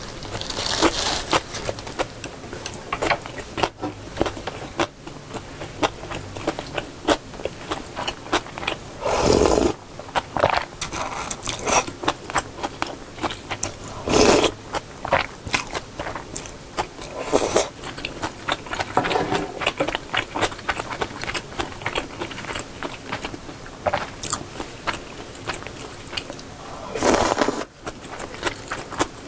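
Close-miked eating of gimbap and janchi guksu noodles in broth: steady wet chewing and mouth clicks. Three louder slurps, about 9, 14 and 27 seconds in, come as noodles and broth are taken from a small bowl.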